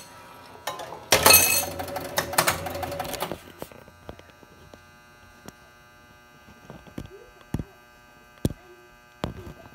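1977 Williams Argosy electromechanical pinball machine at work. About a second in comes a two-second burst of ringing and clatter. Then quieter scattered clicks and clacks of its relays and solenoids follow, with a few sharper knocks near the end.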